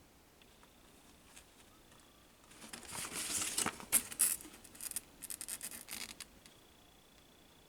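Packing material being handled: a crinkling rustle with several sharp crackles, lasting about four seconds from a third of the way in.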